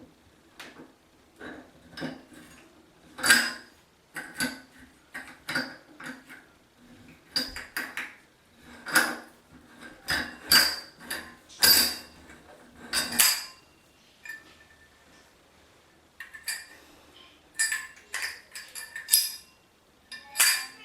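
Irregular metallic clinks and knocks with a short ring, a tool working on a metal shower arm and its fittings. They go quiet for a couple of seconds about two-thirds of the way through, then start again.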